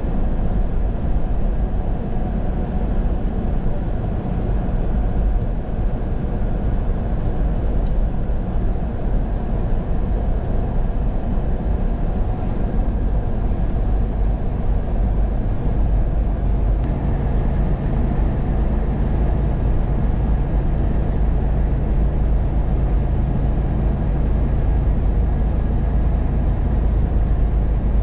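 Truck engine and road noise heard from inside the cab while cruising at steady speed. A little after halfway the low engine hum shifts slightly and settles into a new steady note.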